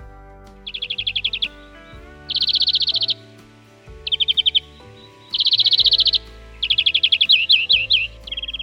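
European greenfinch singing: five rapid trills in a row, the last with swooping notes, followed by a short flat buzzy note at the very end.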